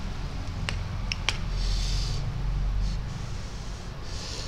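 A man eating spicy instant noodles with a fork. There are a few sharp clinks of metal fork on plate in the first second and a half, then wet, hissy mouth sounds of chewing and slurping twice, over a steady low hum.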